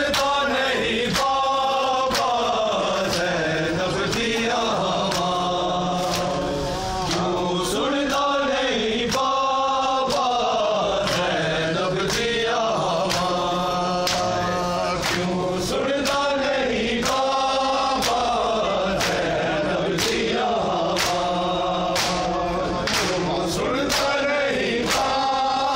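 A group of men chanting a noha together in long repeated phrases, with the sharp slaps of open hands on bare chests (matam) striking in a regular beat under the chant.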